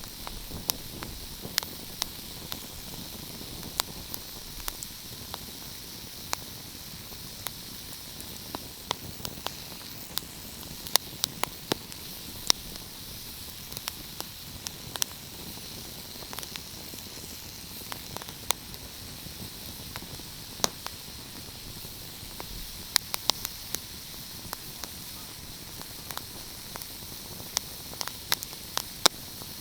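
Wood fire crackling: irregular sharp pops and snaps, several a second at times, over a steady hiss of burning.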